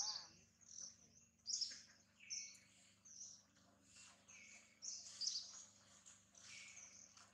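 Small birds chirping, with short high calls repeating irregularly and faintly.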